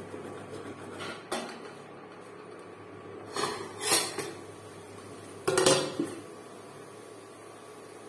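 Stainless steel cookware clanking: a steel ladle and a steel plate lid knocking against a steel pot on an induction cooktop. Separate clanks come about a second in, around three and a half to four seconds in, and loudest at about five and a half seconds.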